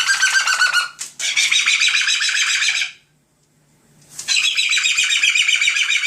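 Pet cockatoo screeching loudly in long, harsh, rapidly pulsing calls: one ends about a second in and a second runs to about three seconds in. After a pause of about a second, another long screech starts.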